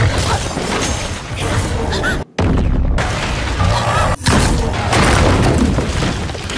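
Loud anime battle sound effects: booming impacts and heavy rumbling mixed with the score, broken twice by a brief cut-out.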